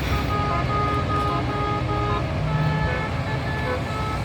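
Bus telolet (basuri) horns playing short melodic notes of changing pitch, several tones overlapping and shifting, over the steady rumble of passing road traffic.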